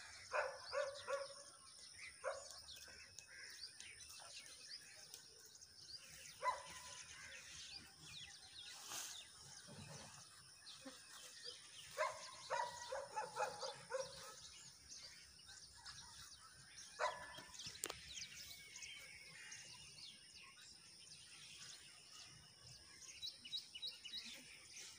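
Faint outdoor ambience with a dog barking in short bursts several times, some in quick runs of barks, and small birds chirping in the background.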